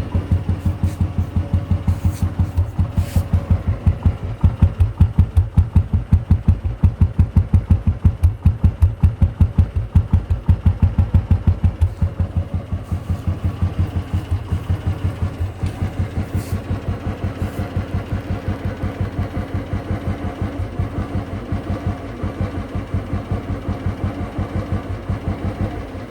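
Royal Enfield Bullet Standard 350 single-cylinder four-stroke engine running with its steady, even thump. It is a little louder for the first dozen seconds, then settles to a slightly quieter beat.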